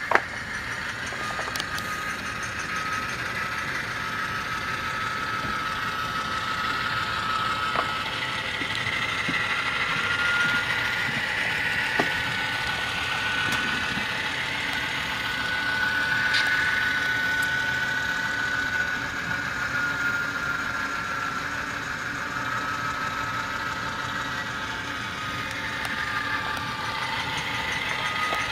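A Soundtraxx Tsunami sound decoder in a Kato AC4400 model locomotive plays a GE FDL-16 diesel prime mover running, through the model's small speaker as the model rolls along the track. The engine note rises a little in the middle and eases back down later, with a few sharp clicks.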